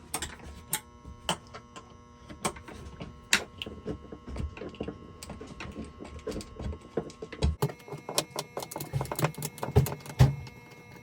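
Irregular metallic clicks and clinks of a hand wrench working small stainless steel lag screws out of wood. The steady background hum drops away about two-thirds of the way through.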